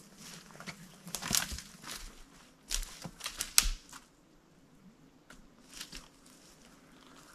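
Footsteps crunching and rustling through brush and dry debris on a forest floor: a few irregular steps in the first four seconds, then quieter, with one more rustle near six seconds.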